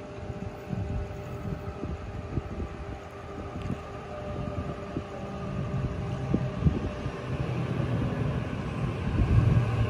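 Tangara double-deck electric train pulling into the platform: rumble of wheels on the rails with a steady electrical hum, growing louder toward the end.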